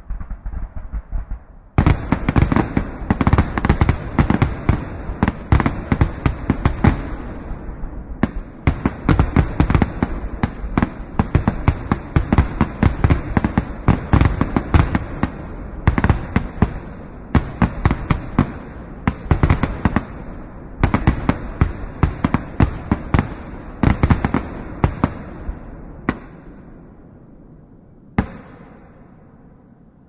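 Fireworks display: a dense, rapid barrage of bangs and crackles starts about two seconds in. It thins out and fades near the end, with one last bang shortly before the close.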